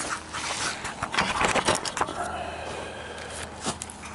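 Camera handling noise: fingers rubbing over a small camera, then scrapes and knocks as it is set down on a concrete ledge. The knocks are thickest in the first two seconds, and it is quieter after that.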